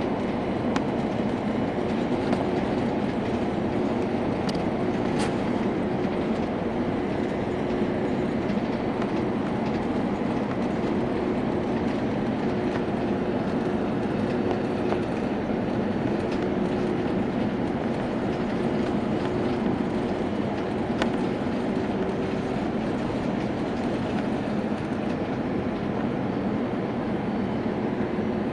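Steady jet airliner cabin noise: a constant rush of engines and airflow, with a faint held hum running through it.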